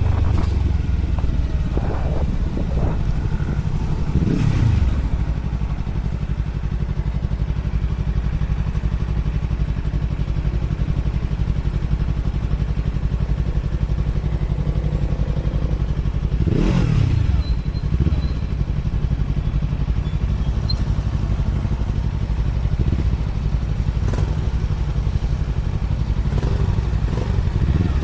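Yamaha R3's parallel-twin engine running at a steady idle through a WR slip-on exhaust with the dB killer removed. Its pitch sweeps briefly twice, about four seconds in and again past the middle.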